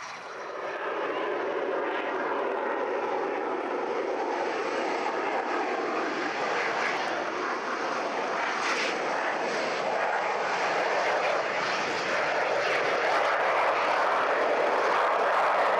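Military jet aircraft on its takeoff roll and climb-out, its engine giving a loud, steady roar at takeoff power. The roar swells up in the first second and grows a little louder toward the end as the jet passes and lifts off.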